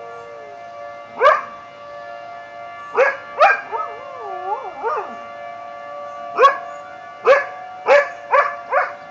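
A dog barks and yips in about eight short, sharp bursts, with a brief wavering howl about four seconds in. Under it runs the steady tone of a tornado siren.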